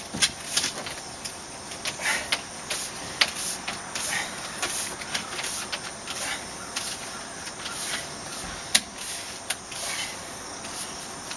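Scattered small clicks, taps and rubbing of a storm door's glass panel being worked into its frame against plastic retaining clips, over a faint steady hiss.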